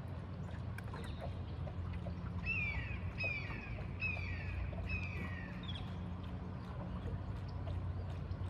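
A bird calls four times in quick succession, each call a short note dropping in pitch, over a steady low hum and light splashing of water.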